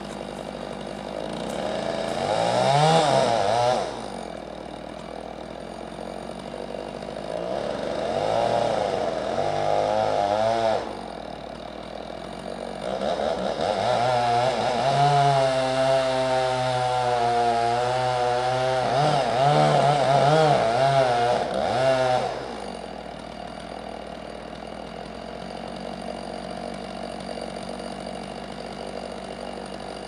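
Stihl chainsaw revved up three times over a steady idling engine: a short burst about two seconds in, another for about three seconds around eight seconds, then a long run of about nine seconds with a wavering pitch before it drops back to idle.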